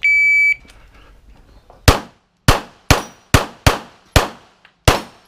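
A shot timer's start beep, one high tone about half a second long, then a pistol firing seven shots in quick, unevenly spaced succession, the first about two seconds after the beep.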